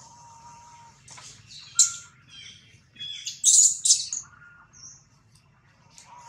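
Newborn macaque infant crying in shrill, high-pitched squeals, in several bursts with the loudest about three and a half to four seconds in: the distress cries of a baby held by a female that is not its mother.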